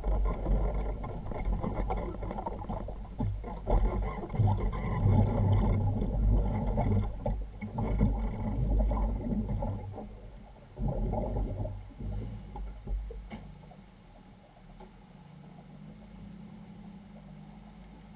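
Loud, uneven low rumble that eases off after about twelve seconds to a quieter steady low hum, as a Waverunner personal watercraft slides off its trailer into the water.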